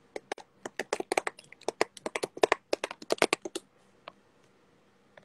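Typing: a quick, irregular run of sharp taps and clicks that stops about three and a half seconds in.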